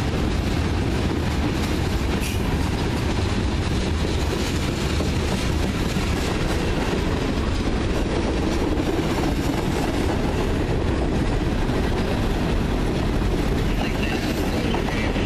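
Freight cars of a passing manifest train (tank cars, covered hoppers, a centerbeam flatcar) rolling by close, their steel wheels running on the rails in a steady, even noise.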